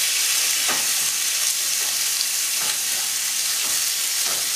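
Pieces of wild boar loin sizzling in hot coconut oil in a frying pan, a steady hiss, with a few light clicks from metal tongs turning the meat to sear it.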